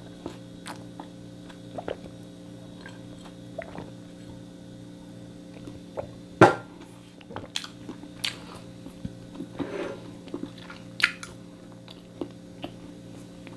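Close-miked eating sounds: sipping green tea from a glass and chewing the last of a toasted sandwich, with scattered small clicks and one sharp click about six and a half seconds in, over a steady low hum.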